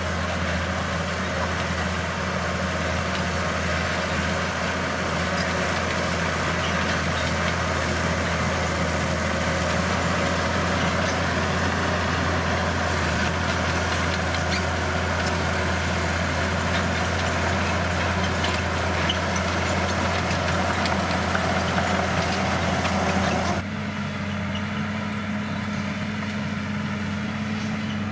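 Bulldozer's diesel engine running steadily with a constant low drone. About 23 seconds in the sound changes abruptly, becoming slightly quieter and duller.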